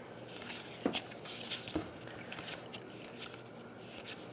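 NBA Hoops trading cards being handled and slid one behind another in the hands: faint rustling and scraping of card stock, with a couple of light clicks about a second and nearly two seconds in.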